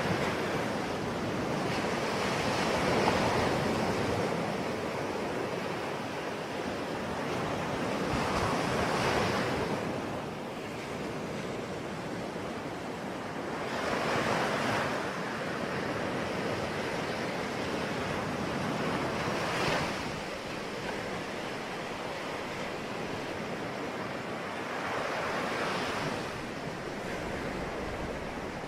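Ocean waves breaking on the shore: a continuous wash of surf that swells as a wave breaks about every five to six seconds, five times.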